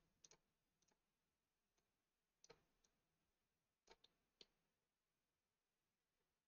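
Near silence broken by a handful of faint, irregular computer mouse clicks, a pair of them close together about four seconds in.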